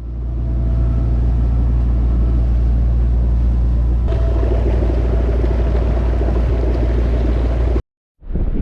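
Boat engine running steadily under way, a loud low drone. The sound shifts at a cut about four seconds in and stops abruptly near the end.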